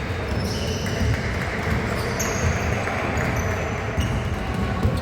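Basketball game sounds in a gym: a ball bouncing on the court, with short high squeaks scattered through and a steady crowd-and-hall background.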